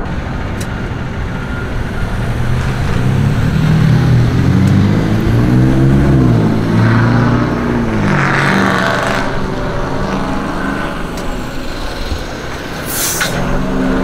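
A large road vehicle, such as a truck or bus, passes with its engine running: its pitch rises and then falls about halfway through. A short hiss of air comes near the end.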